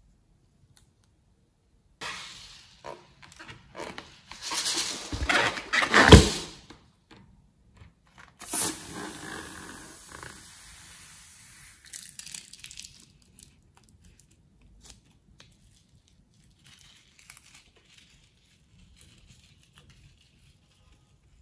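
Plastic piping bag crinkling and rustling as slime is squeezed out of it, loudest about six seconds in. A sudden hiss follows a couple of seconds later and fades over about four seconds, then faint light rustles.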